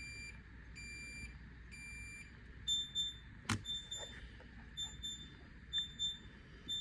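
Samsung RF28T5001SR refrigerator's control panel beeping repeatedly, roughly once a second, while the fridge is stuck in its defrost mode. A bit under three seconds in, the beeps change to a higher pitch, and a single sharp click follows a moment later.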